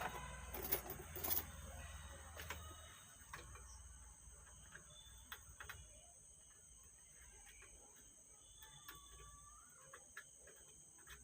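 Faint clicks and small taps of hand work on an amplifier's wiring and board connectors, a cluster of them in the first second or so and scattered ones after. A low hum stops about three seconds in, and a steady high whine runs underneath.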